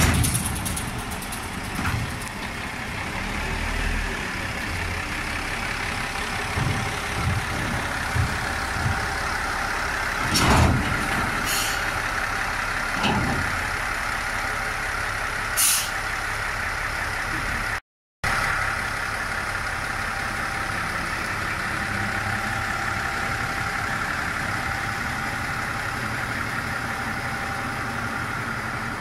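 Tenryū Hamanako Railway TH2100-series diesel railcar idling steadily on a turntable while it is turned. A few metal knocks and clanks come from the wheels and turntable about ten to sixteen seconds in.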